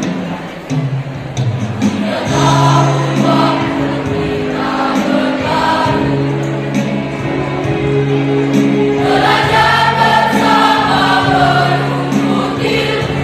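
School choir of teenage students singing a slow farewell song with instrumental accompaniment. The voices come in about two seconds in and swell for a few seconds past the middle.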